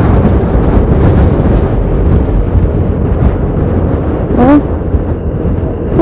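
Strong gusting wind buffeting the microphone of a camera on a moving motorcycle: a loud, uneven low rumble of wind noise that drowns out the engine.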